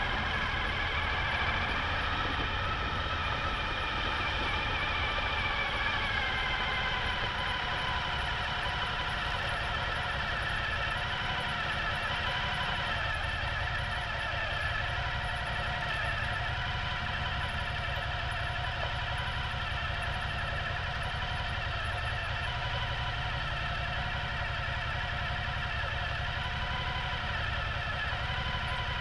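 Suzuki V-Strom motorcycle engine running steadily under way, with a low rumble and an engine note that drifts a little in pitch with the throttle.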